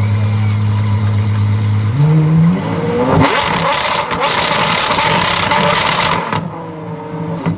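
Apollo Intensa Emozione's V12 idling, then revved hard about two seconds in, its pitch climbing into a loud, full-range blare held for about three seconds before the revs fall back toward idle near the end.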